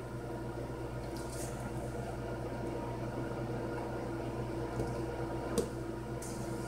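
A spatula scraping thick cake batter out of a stainless steel mixing bowl into a tube pan: faint soft scrapes and plops, with a light tap about five and a half seconds in, over a steady low hum.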